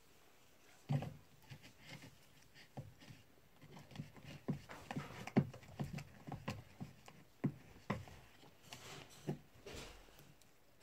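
A utensil knocking and scraping against a mixing bowl in an irregular pattern of soft taps, stirring glue and shaving cream together.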